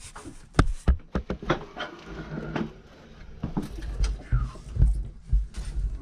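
Irregular knocks, clunks and low thumps of work and movement in a cramped attic around an old air handler, with rubbing and scraping between them.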